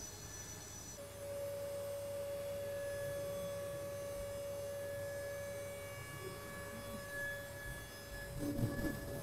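DATRON MXCube high-speed milling spindle whining steadily as a 6 mm chamfer tool at 28,000 rpm cuts a metal workpiece. The whine changes to a new steady pitch about a second in, and some louder scratchy cutting noise comes near the end.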